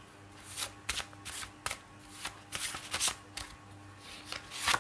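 A deck of oracle cards being shuffled by hand: a run of irregular quick riffles and flicks, with pauses between them.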